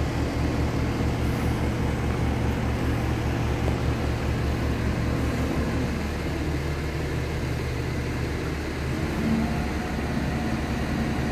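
Mobile crane's diesel engine running with a low, steady throb; the lowest part of the note drops away about six seconds in.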